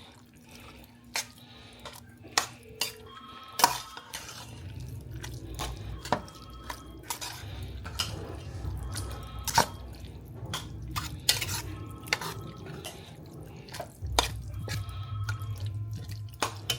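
Kitchen clatter as pasta sauce is poured into a pot of cooked ground beef and stirred in: sharp knocks and clinks of a utensil against the pot, with a low rumble underneath from about four seconds in.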